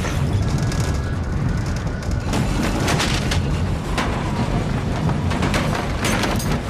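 Steady low rumbling drone of a tense television soundtrack, with a few sharp hits about two and a half to three and a half seconds in and again near the end.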